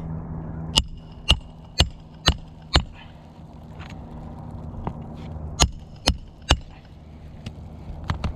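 Hammer blows setting a roofing nail under a lifted shingle with a roof snake nailing tool. Five quick strikes come about two a second, then three more a few seconds later, each with a slight metallic ring.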